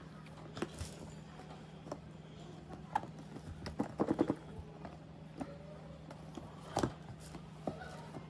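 Fingers gripping and tapping the cardboard box of an iPad Air as they struggle to pull off its tight lid: scattered light taps and scrapes, with a quick run of taps about four seconds in and a sharper knock near the end. A faint steady low hum lies underneath.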